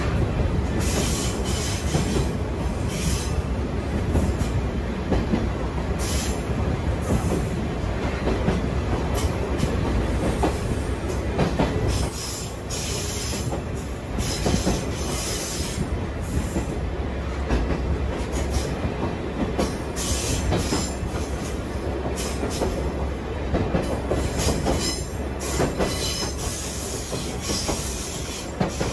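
Sagano scenic trolley train running along the track, a steady rumble of wheels on rails with frequent irregular clacks and rattles, heard from an open-sided carriage. The sound briefly drops a little about twelve seconds in.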